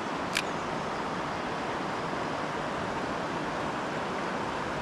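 Steady rushing of river water, an even hiss that does not change, with a single faint click about half a second in.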